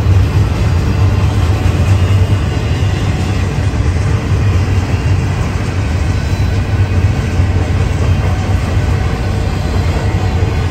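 Double-stack intermodal freight train's container cars rolling past, a steady rumble of steel wheels on the rails.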